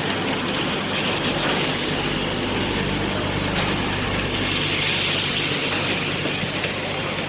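Bottle packaging-line machinery running: a steady mechanical hum with an even hiss, from the bottle-handling machine and conveyor.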